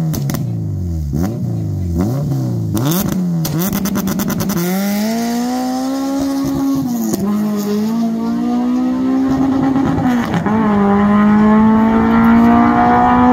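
Car engine revved in quick repeated blips, then launching about four and a half seconds in and pulling hard, its pitch climbing and dropping twice at upshifts as it accelerates down the strip.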